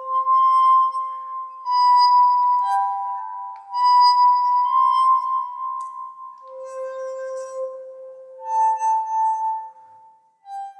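Glass tones in the manner of tuned water glasses, playing a slow tune: clear ringing notes, each with a sharp start and a long sustain, a new note about every second and overlapping the last. The notes die away near the end, with one last short note.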